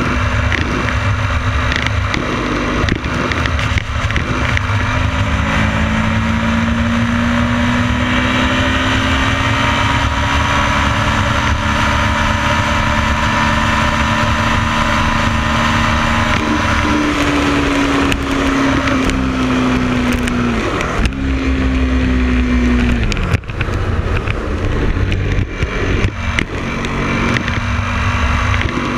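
Motorcycle engine running at highway speed under a heavy rumble of wind on the microphone; its note climbs slowly, steps up about halfway through, then falls away about three quarters through as the throttle eases.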